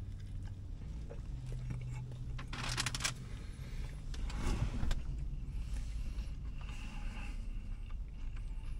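Steady low rumble inside a car's cabin, with a man chewing a mouthful of sandwich. There are short rustling noises about three seconds in and again near the middle.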